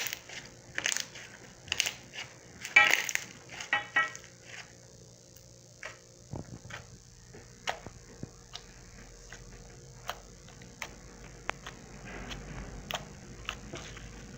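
Clear slime being played with, giving sharp wet clicks and pops. A dense cluster of louder pops comes in the first few seconds, then scattered single clicks.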